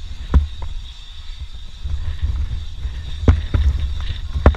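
Strong wind buffeting the microphone in a steady low rumble, with three sharp knocks: one shortly after the start and two near the end.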